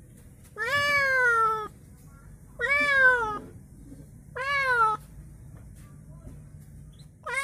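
A white-and-orange domestic cat meowing repeatedly: three drawn-out meows, each rising and then falling in pitch, with a fourth starting near the end.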